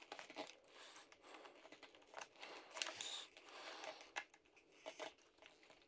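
Faint, scattered clicks and light scraping of small plastic and metal parts being handled while fitting the steering bell crank of an RC truck.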